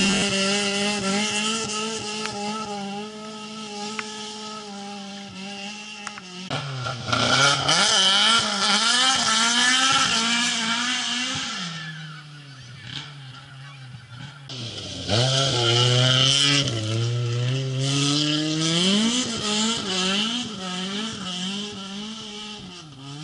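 Rally car engine at high revs, its pitch climbing and then dropping back with each gearshift, with two loud passes about seven and fifteen seconds in.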